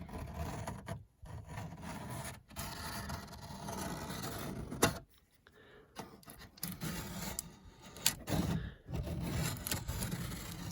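Carpenter's pencil scratching over masking tape on the car's plastic bumper panel in uneven strokes, marking cut lines, with a couple of sharp clicks.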